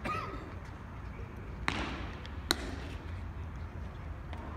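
Two sharp knocks less than a second apart, typical of a baseball smacking into a leather glove, over a steady low background hum.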